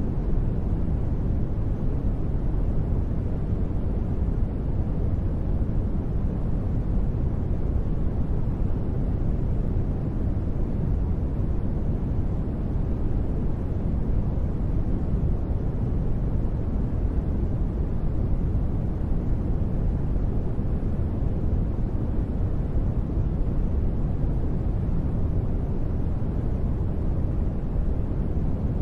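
Continuous synthetic sleep noise, billed as white noise, running steady and even with no changes. It sounds deep and muffled rather than hissy.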